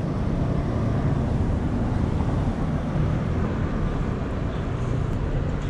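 City street traffic: a steady low rumble of cars and motor scooters moving through an intersection.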